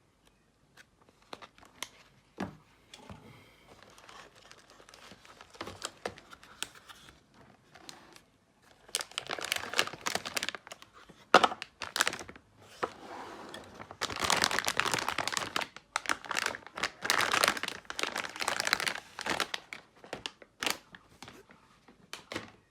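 Packaging being handled and unwrapped: crinkling and rustling with scattered clicks. It comes in louder spells about nine seconds in and again from about fourteen to nineteen seconds.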